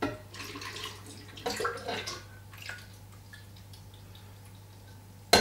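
Coconut milk pouring and splashing from a jar into a blender jug, mostly in the first half, with a short sharp clack near the end.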